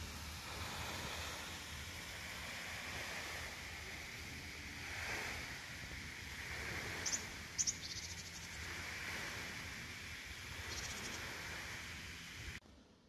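Outdoor rushing ambience, as of wind or falling water, that swells and eases every few seconds. A few brief high chirps come about seven seconds in and again near eleven seconds. The sound drops away suddenly just before the end.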